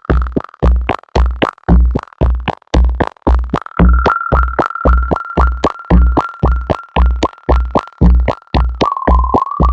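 Moog synthesizer playing an even, rapid pattern of short, punchy bass-heavy notes under a held high tone. The high tone drops slightly in pitch near the end.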